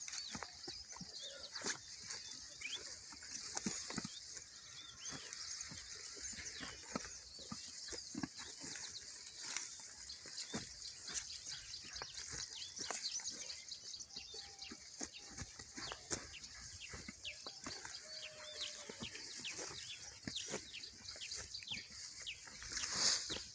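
Farmyard sounds: a steady high chirping in the background, many small rustles and crackles, and a couple of short clucks from chickens in the middle, with a louder high burst near the end.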